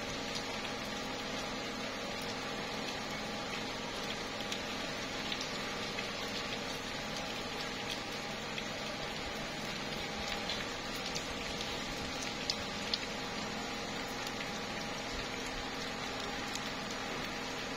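Steady light rain falling on tree leaves, with many scattered drops ticking, a couple of them a little louder about twelve and a half and thirteen seconds in.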